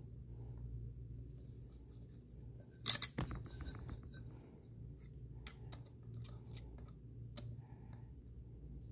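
Small metallic clicks and taps from a hex driver and the RC car's motor and pinion being handled while the pinion grub screw is set on the brushless motor shaft, with a sharp clatter of clicks about three seconds in and scattered single clicks later.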